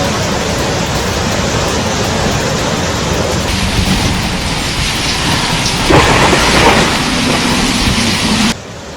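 Heavy rain in a thunderstorm, a dense steady hiss, growing louder for about a second around six seconds in and cutting off abruptly near the end.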